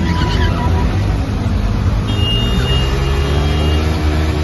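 Sport motorcycle engine held at high revs during a burnout, the rear tyre spinning against the pavement in a continuous loud engine roar whose pitch shifts slightly.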